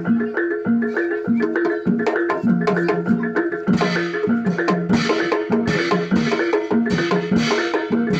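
Javanese gamelan accompaniment for a barongan dance: bronze mallet instruments repeating a fast, steady pattern of low notes over sharp drum strokes. Cymbals join in with a bright, rhythmic wash about four seconds in.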